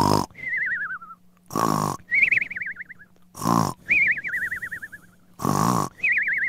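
Cartoon snoring sound effect: a loud snort about every two seconds, each followed by a wavering whistle that falls in pitch.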